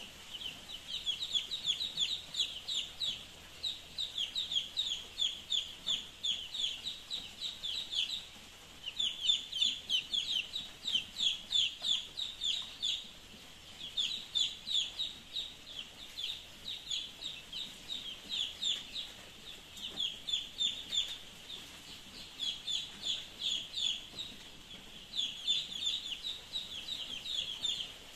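A flock of week-old cockerel chicks peeping: a dense chorus of short, high peeps, many a second, easing off briefly a few times.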